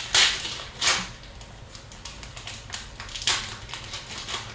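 Trading cards being handled: two short rustling swishes in the first second, then a run of light clicks and ticks as cards are slid and flipped.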